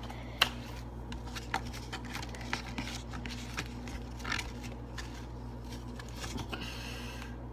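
Hands handling slime: scattered small sticky clicks and short rustles, over a steady low hum.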